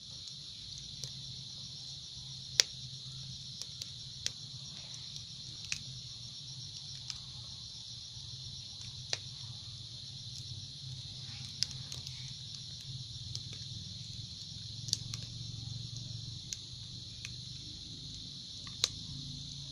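Dried coconut husk fire crackling in a concrete cooking stove: sharp, irregular pops about once a second, over steady cricket chirping and a low hum.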